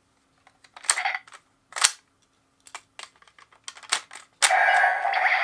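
Sharp plastic clicks from a toy gun's mechanism being worked by hand, about six of them at uneven intervals. A louder continuous sound starts near the end.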